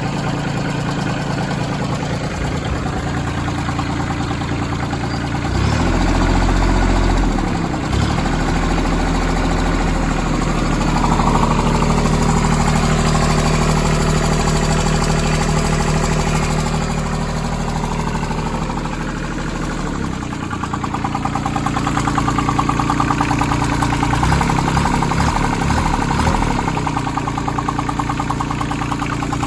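Branson 2500h tractor's A1100 diesel engine running, its speed changing several times, with a strange engine noise in a nearly new engine. The owner first suspected the rocker arms but doubts that they are the cause.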